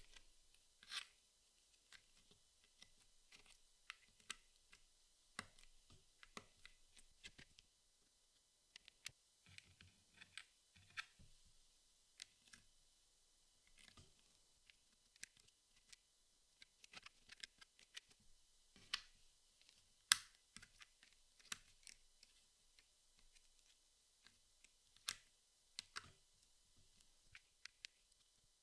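Jigsaw puzzle pieces being handled and fitted together: faint, irregular small clicks and taps, with one sharper click about 20 seconds in.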